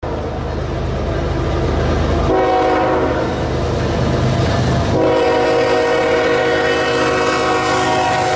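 Freight diesel locomotive's air horn sounding two long chord blasts for a grade crossing, the first starting a little over two seconds in and the second, longer one following after a brief break about five seconds in. Under it the locomotive's diesel engine rumbles as it approaches.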